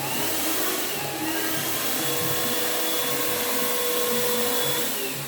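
Stage snow machine running, its blower fan giving a steady rushing hiss that eases off near the end.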